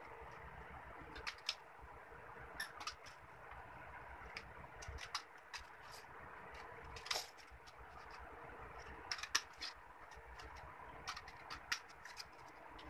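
Small green-handled scissors snipping through a paper page, heard as scattered short snips and paper rustles at an irregular pace, over a steady background hum.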